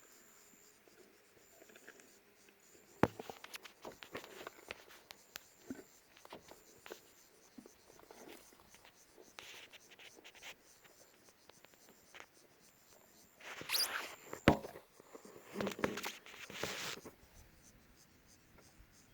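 Lioness feeding on an impala's head: scattered cracks and scratchy crunching of bone and hide, with one sharp crack about three seconds in and louder bouts of crunching past the middle.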